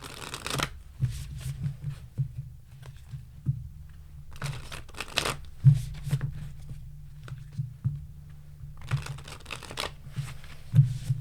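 Tarot cards being shuffled in three short rustling bursts, with soft knocks in between.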